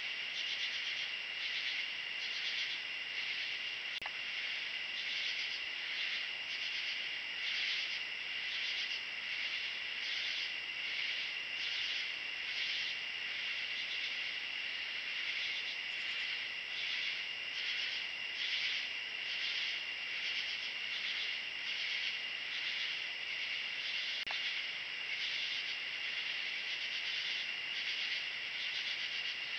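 Night insect chorus: a steady high trill with a pulsing chirp layered over it, repeating a couple of times a second.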